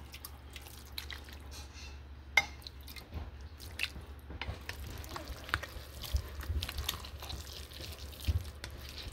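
A spoon stirring a wet mix of shredded chicken, sweet potato, carrot and rice soaked in broth in a large metal pan: irregular wet squelches and small clicks, with one sharp knock about two and a half seconds in.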